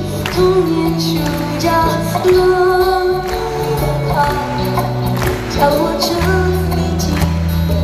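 Live concert performance: a woman singing a slow pop ballad into a microphone over band accompaniment with sustained bass notes, heard through the venue's sound system.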